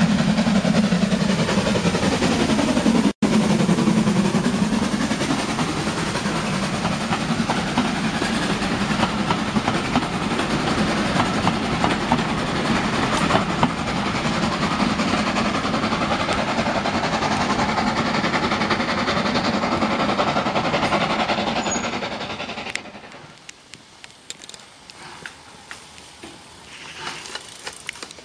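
Steam locomotive approaching and passing close by, then its train of coaches rumbling and clattering over the rail joints. About 23 seconds in the sound drops sharply to a much quieter background with scattered clicks.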